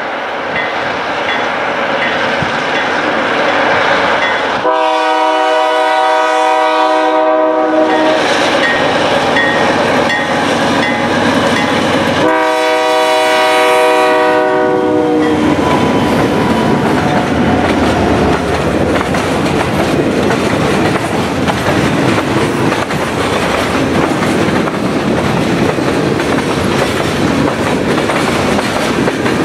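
Canadian National freight train's diesel locomotives approaching and passing, sounding two long horn blasts, the first about five seconds in and the second about twelve seconds in. After the horn the freight cars roll steadily past.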